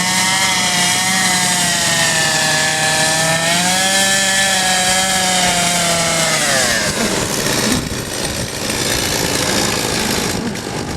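Two-stroke chainsaw running at high revs for carving wood, its pitch holding steady, then falling about two-thirds of the way through as the throttle is let off.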